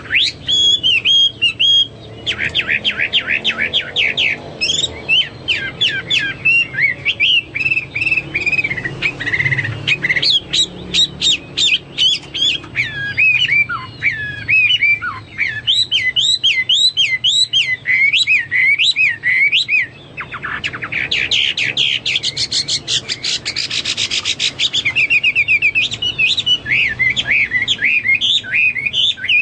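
Hwamei (melodious laughingthrush) singing a loud, varied song with hardly a break: rapid runs of repeated notes, fast trills and swooping whistles.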